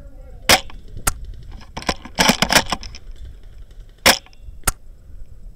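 Airsoft guns firing, including the Tokyo Marui VSR-10 spring bolt-action sniper rifle: sharp single cracks about half a second in, about four seconds in and again shortly after, with a quick cluster of several cracks around two seconds in.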